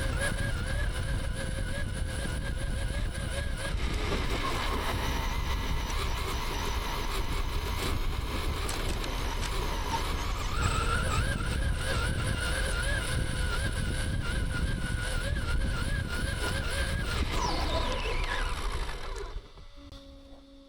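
Battery-electric RC car running hard: a high motor whine that wavers with the throttle over a rumble of wind and tyre noise. Near the end the whine winds down and the sound drops away.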